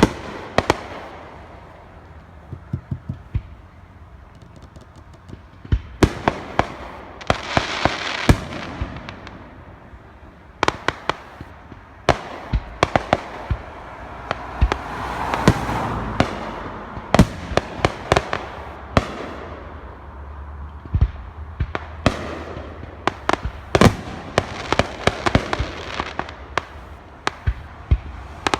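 Fireworks show: a long run of sharp shell bangs, one or two a second and packed closer together in the second half, with swells of crackling between them, about a quarter of the way in and again around the middle.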